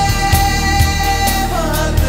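Recorded song playing for a dance: a singer holds one long note over a steady drum beat, then slides down in pitch about one and a half seconds in.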